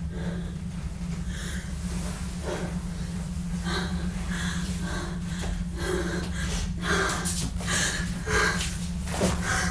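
A woman breathing heavily and gasping, the breaths growing louder and quicker after the first few seconds, over a low steady hum.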